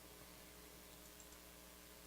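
Near silence: room tone with a steady low hum and a few faint clicks about a second in.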